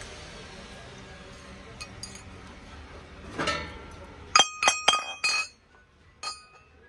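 Brass pestle knocking against a brass mortar: a short metal scrape, then four quick ringing clinks about four seconds in and one more a second later.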